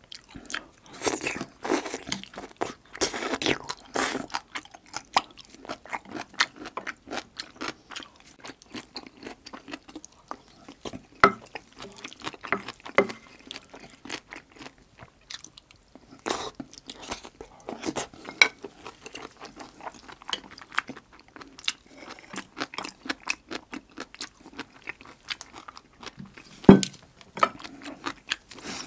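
Close-miked chewing and crunching of mouthfuls of jjajang rice and Korean side dishes, with irregular wet crackles and clicks and one louder sharp knock near the end.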